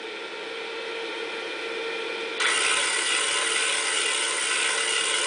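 Pittman 24 V DC motor running on reversed polarity, turning a rotary table backwards through a small pulley and belt on a 4-inch pulley: a steady mechanical whir with a faint whine. About two and a half seconds in it gets suddenly louder and brighter.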